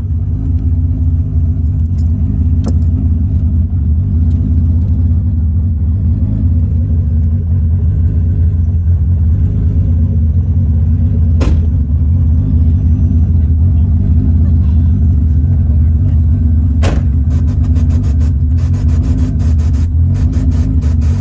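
Nissan S15 Silvia under way, heard from inside the cabin: a loud, steady low rumble of engine and road noise. A couple of single sharp clicks come through the middle, and in the last few seconds quick rattling clicks come thick and fast.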